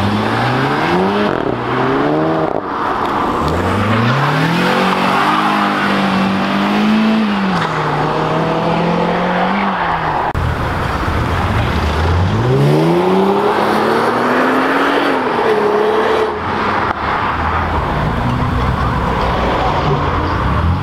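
Car engines revving hard as cars accelerate away, the pitch climbing and dropping back at each gear change. There are three runs of acceleration, the second starting about three and a half seconds in and the third about twelve seconds in.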